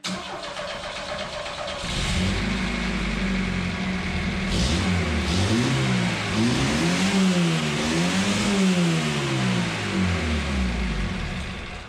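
Chevrolet S-10's GM 2.5-litre iron-block four-cylinder, running with no radiator or coolant, revved hard again and again toward 6,000 rpm, beyond its 4,500 rpm redline. From about two seconds in its pitch climbs and falls in several quick sweeps, then drops away near the end.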